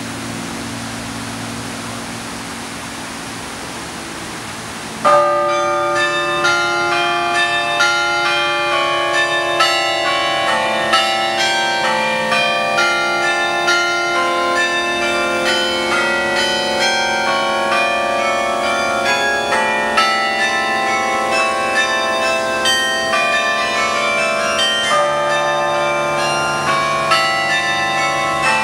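Carillon bells in a stone tower ringing out a tune. The bells start about five seconds in with a loud strike, with notes struck roughly a second apart and each one ringing on under the next. Before the bells there is a steady rushing noise.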